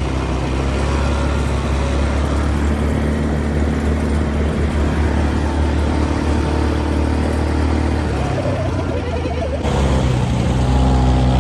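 A vehicle engine running steadily at a constant speed, with a low, even hum throughout. There is a sudden change in the sound near the end.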